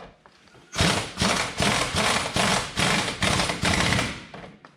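Impact wrench on its lower setting hammering a rear shock-absorber mounting nut snug, in a quick run of loud pulses lasting about three seconds, starting about a second in.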